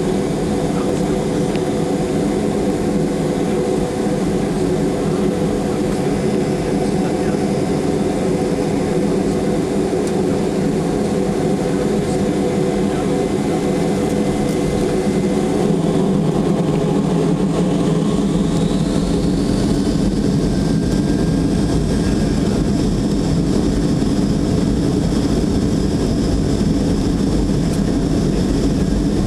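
Cabin noise of a Tupolev Tu-204-300 airliner taxiing, heard from a seat over the wing: a steady drone from its turbofan engines. About two-thirds of the way through, a whine rises in pitch and the sound grows a little louder as the engines spool up, then a steady high whine holds.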